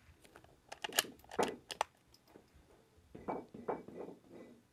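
A quick run of light mechanical clicks and clacks from the .22 LR rifle being handled between shots, bunched about a second in, then a softer series of knocks from about three seconds in.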